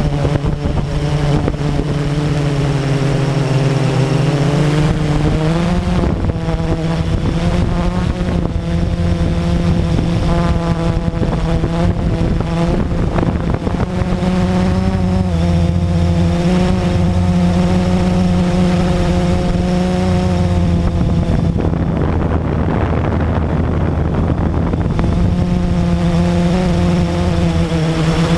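Blade 350QX quadcopter's four brushless motors and propellers whining steadily in flight, heard through the camera on the drone itself. The pitch steps up about six seconds in and keeps shifting as the motors speed up and slow down while it manoeuvres.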